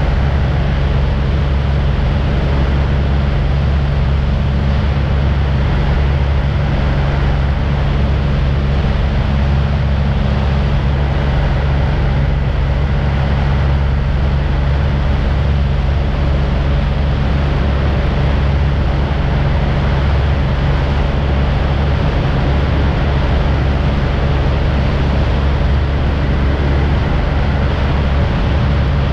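Small propeller aircraft's engine running steadily and loudly, a constant low hum with even noise above it and no change in pitch.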